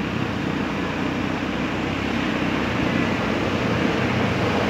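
Steady rush of surf washing up the shore, mixed with low wind rumble on the microphone.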